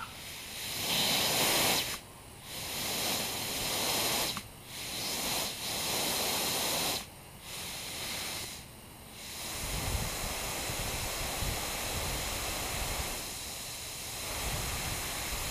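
Compressed air hissing through an external wastegate and air-line gauge, in about four short bursts and then a longer, steadier hiss, as the wastegate with its new spring is pressurised to test its opening pressure.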